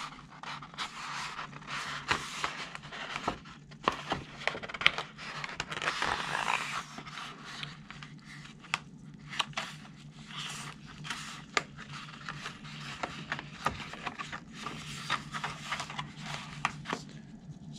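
Thin C-temp plastic sheet being flexed and snapped by hand along a fresh knife score line: an irregular run of sharp clicks and crackles with rustling plastic as the waste breaks away.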